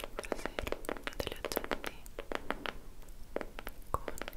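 Close-miked tongue clicks and mouth clicks: a quick, irregular run of sharp clicks, with a short pause about three seconds in.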